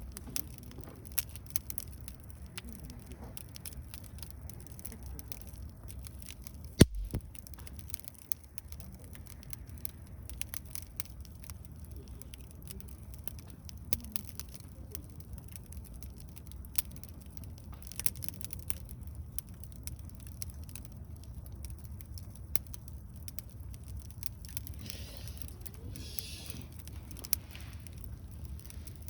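Wood fire crackling, with scattered sharp pops and one much louder pop about seven seconds in, over a steady low rumble.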